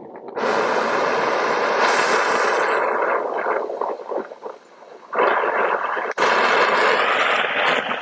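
Fizzing, crackling spark sound effect, like a burning sparkler or fuse, in two long stretches with a quieter spell of a second or two between them.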